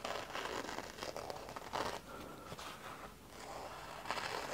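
A freshly sharpened M398 steel knife slicing through paper in a few swishing strokes, a sharpness test after sharpening.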